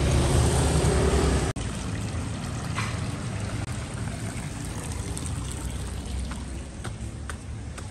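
A passing vehicle's engine rumbles close by and cuts off suddenly about a second and a half in. After that comes a steady rushing background noise with a few faint taps of footsteps on stone steps.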